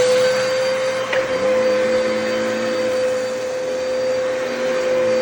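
Dyson DC33 upright vacuum cleaner running with a steady high whine just after being switched on. A click comes about a second in, after which a lower hum joins the whine.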